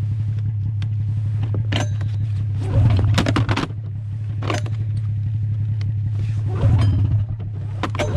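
Polaris snowmobile engine running at a steady low idle, with two brief louder surges about three and seven seconds in. Scattered short rustles and knocks sound close by.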